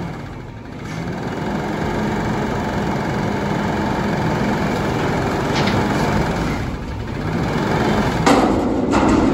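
Front-loader garbage truck engine running steadily, its pitch drifting up slightly, with a sudden louder rush of noise about eight seconds in and again near the end.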